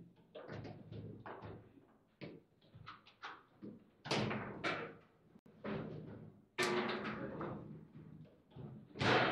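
Foosball play: irregular sharp knocks and thuds of the ball being struck by the rod figures, with rods clacking against the table. A goal is scored during the rally.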